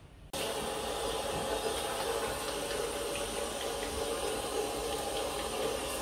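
Kitchen tap running steadily into a stainless steel sink, the flow starting suddenly a moment in.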